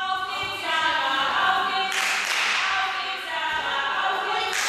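Several spectators shouting and cheering at once, overlapping held shouts from the sideline, with a burst of noise about two seconds in and a sharp noise near the end.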